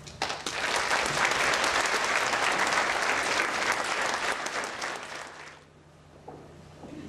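Concert hall audience applauding. The applause breaks out just after the start and dies away after about five seconds.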